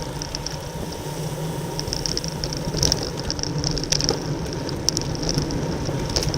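Wind rushing over the microphone of a camera on a racing bicycle, with the steady whirr of bicycles riding in a pack and a few sharp clicks in the second half.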